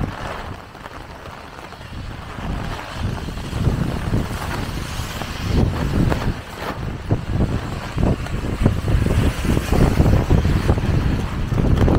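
Gusty wind buffeting the camera microphone in uneven low rumbles, stronger in the second half, over the steady hiss of heavy rain.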